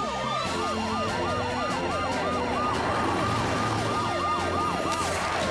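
Cartoon emergency-vehicle siren, a fast rising-and-falling yelp about three to four times a second, fading out near the end, over background music.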